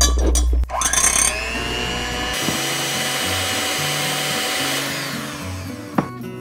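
Electric hand mixer whisking raw eggs in a glass bowl. Its motor rises in pitch about a second in, then runs with a steady whine, fading away near the end.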